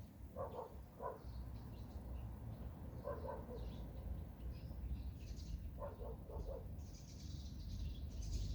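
Forest birds singing: short low calls in twos and threes repeat every few seconds over scattered higher chirps, with a steady low rumble of background noise underneath.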